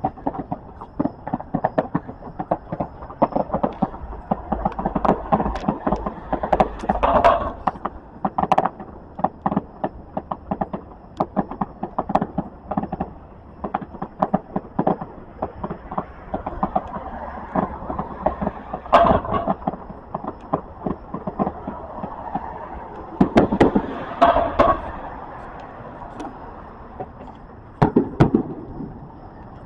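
Fireworks popping and crackling in a rapid irregular string, with several louder bangs scattered through, over a steady background hum.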